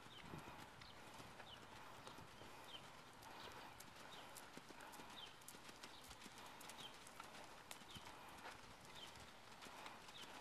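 Faint, regular hoofbeats of a paint pony moving under a rider on arena sand.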